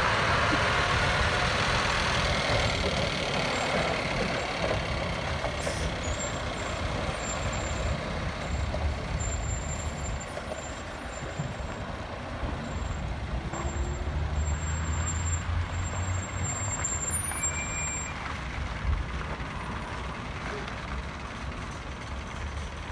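Scania R620 truck with its V8 diesel driving away, the engine rumble and tyre noise slowly fading.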